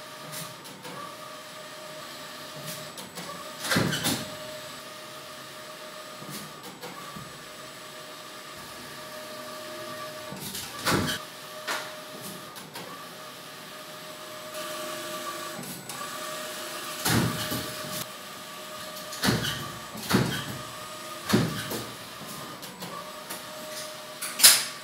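Large-format inkjet printer running as it prints a vinyl banner: a steady motor whine that stops and restarts every few seconds with the print carriage's passes, broken by several loud sudden knocks or rustles, the loudest near the end.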